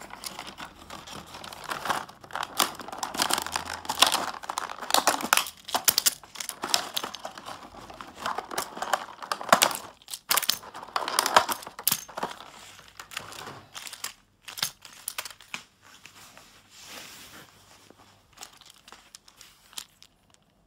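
Wooden toy Shinkansen train cars being handled close to the microphone: irregular clicks, taps and rubbing of fingers on the cars and their metal wheels, busiest in the first half and thinning out toward the end.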